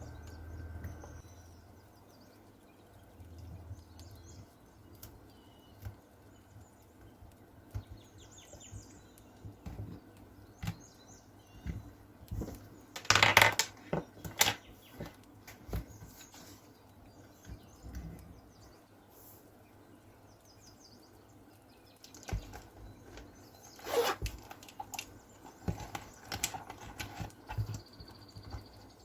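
Items and packaging being handled: scattered clicks, taps and rustles, with louder rustling bursts about 13 and 24 seconds in.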